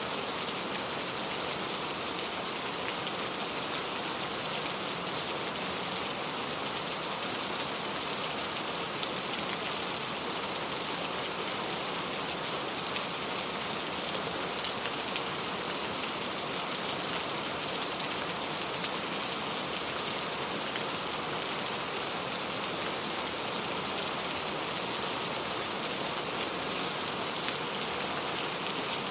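Steady rain falling, a dense even patter of raindrops with a few sharper drop ticks now and then.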